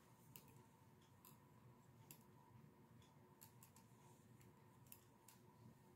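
Near silence with faint, irregular clicks of metal-tipped knitting needles as stitches are worked.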